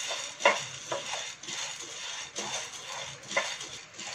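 Wooden spatula stirring dry roasted split chickpeas (phule chane) in a nonstick frying pan. The grains rattle and scrape across the pan in irregular strokes, a few each second or so.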